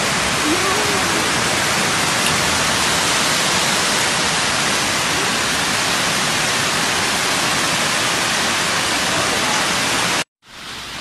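Steady loud rush of a flash flood torrent and heavy rain, floodwater pouring down a street. About ten seconds in it cuts off suddenly, and a quieter rush of floodwater follows.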